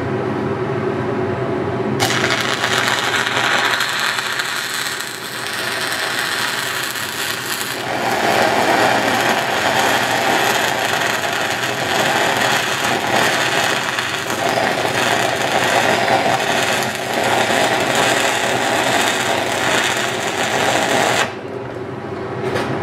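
Stick-welding arc of a 6010 electrode running an uphill root pass on pipe: the arc strikes about two seconds in, gets louder about eight seconds in, and cuts off suddenly near the end. A steady low hum runs underneath.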